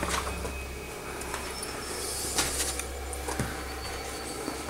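Quiet room with a steady low hum and two faint knocks, about two and a half and three and a half seconds in.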